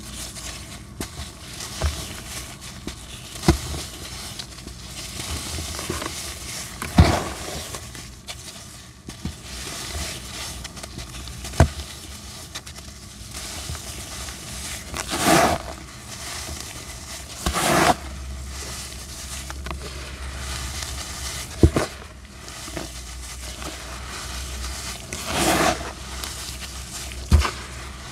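Dry black sand being crumbled by gloved hands: a steady gritty rustle of powder pouring and rubbing, broken by about seven sudden louder crunches as packed chunks break apart.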